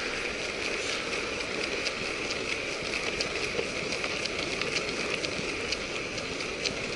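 Longboard wheels rolling on smooth asphalt: a steady rolling noise with scattered small ticks.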